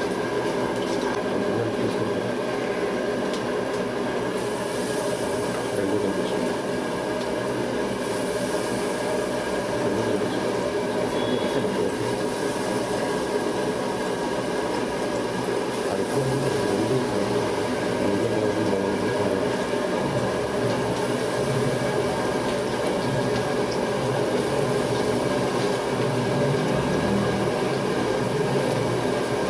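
A steady mechanical hum and rumble carrying a few constant tones, with no breaks or sudden events.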